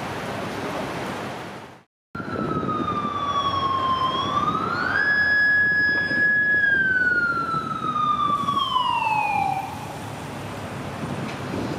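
Yamaha FJR police motorcycle siren: one slow wail that dips, climbs and holds high, then falls away and stops near the end. Road traffic noise runs underneath.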